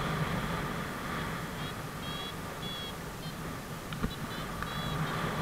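Paragliding variometer giving short high beeps, several in a row with gaps between them, the tone it sounds in rising air. Under the beeps is a steady rush of airflow on the microphone in flight.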